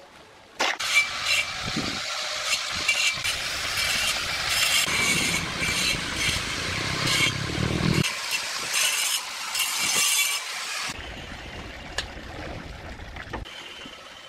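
Steel shovel scraping and scooping through a dry pile of cement-and-sand mix: a gritty scraping that starts just under a second in and drops away after about ten seconds.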